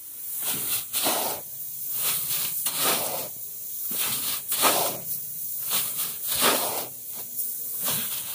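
Unhusked paddy being scooped from a heap with a metal scoop and poured into a jute sack: repeated swishes of grain sliding and pouring, coming in irregular surges a second or so apart.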